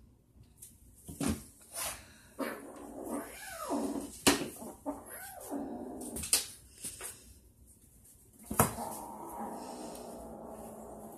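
A kitten and a Siamese cat play-fighting: low growling and wavering yowls, with several sharp knocks of paws and bodies against the floor and cabinet, and a steady growl in the last couple of seconds.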